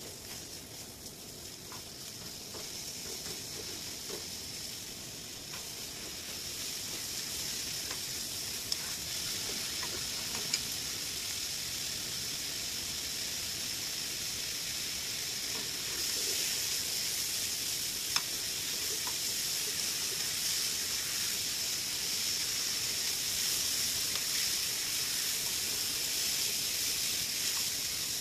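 Pork belly slices and sliced green onion sizzling in a nonstick frying pan, the sizzle growing steadily louder with a step up a little past halfway. A few light clicks of the utensils on the pan.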